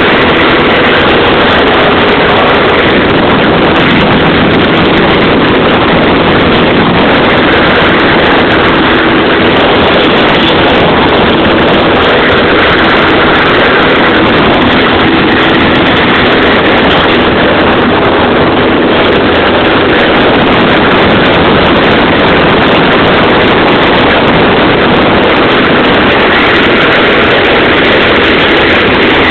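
Engine and propeller of a single-engine light aircraft droning steadily and loudly in cruise flight, heard from inside the cockpit.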